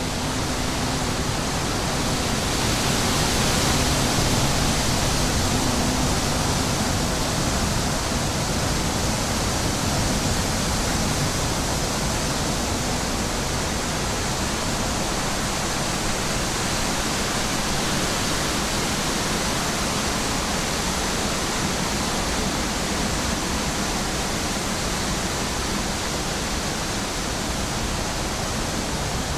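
Steady wind rushing over the microphone in an open field, with a low rumble. A bee's buzz shows faintly beneath it near the start.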